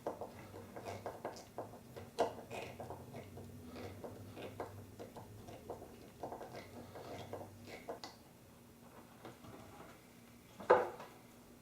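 Small clicks and taps of tools and metal parts on the faucet handles, several a second, as the handles are screwed down; they thin out after about eight seconds, and one louder knock comes near the end.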